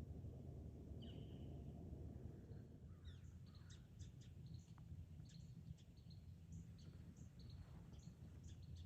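Faint, quick high chirps and calls of small birds, repeated many times, over a steady low rumble.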